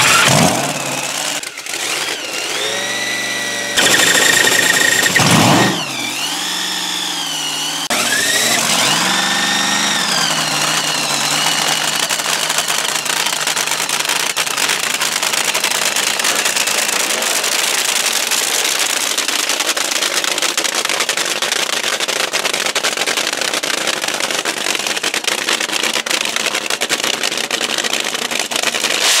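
Supercharged V8 engine of a fuel altered drag car firing up on a squirt of priming fuel. It is blipped up and down several times in the first ten seconds, then runs steadily.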